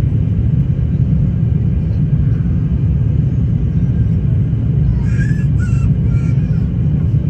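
A steady low rumble at an even level, with a few faint high chirps about five seconds in.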